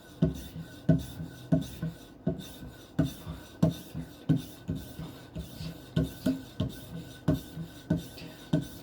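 Knife blade stroked back and forth across a hard polymer strop charged with 1 micron diamond emulsion, a quick even rhythm of rasping strokes at about three a second. The blade is being polished with the fine diamond abrasive.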